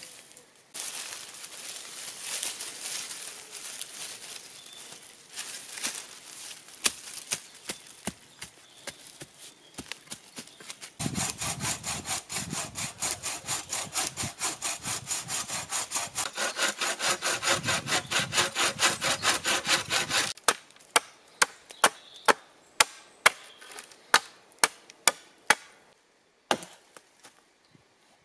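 Hand sawing through a wooden pole laid across a stump, with quick, even back-and-forth strokes for several seconds. This is followed by a run of sharp, separate wooden knocks about twice a second. Before the sawing there is a noisy rustle and crackle of a leafy branch being handled.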